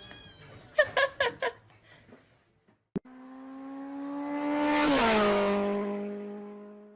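Four quick short cries in the first second and a half. Then a click, and a motor vehicle drives past: a steady engine note swells to a peak, drops in pitch as it goes by, and fades away.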